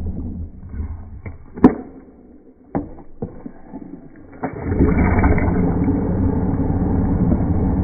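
Stick blender puréeing oranges in a plastic jug: it stops about half a second in, a few sharp clicks and knocks follow, and it starts running again about four and a half seconds in.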